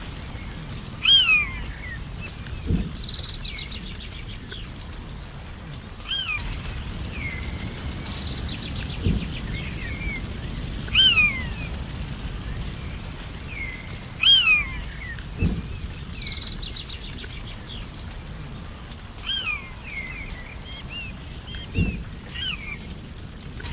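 Forest birds calling: a sharp downward-sliding whistle repeated about six times, with short fast rattling trills in between. Under them, a steady low background rumble and four dull low thumps about six seconds apart.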